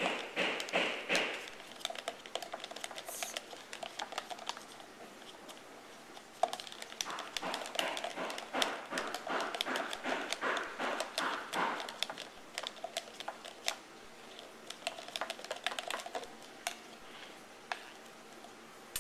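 A stirring utensil scraping and clicking against the sides and bottom of a clear cup as a glue-and-water slime base is stirred. The clicks come quickly and unevenly, with busier spells near the start and in the middle.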